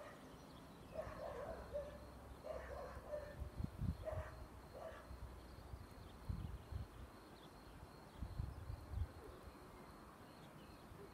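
Quiet outdoor ambience with no bells ringing: scattered low rumbles and thumps, and a few faint short calls, most of them in the first half.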